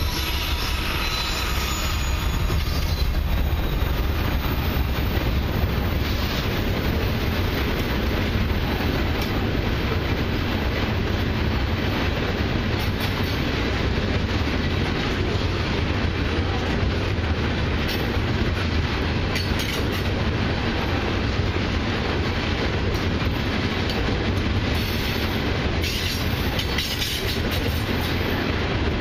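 A long freight train of loaded crude-oil tank cars rolling past at speed: a steady heavy rumble with the wheels clattering over the rails.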